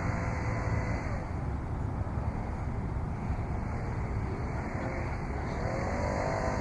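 Steady low rumble of outdoor background noise, with faint distant voices about five seconds in.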